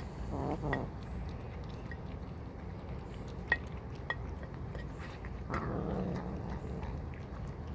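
Cats eating from a dish, with a few sharp clicks of chewing over a steady low background rumble. A short animal call about half a second in, and a longer muffled sound past the middle.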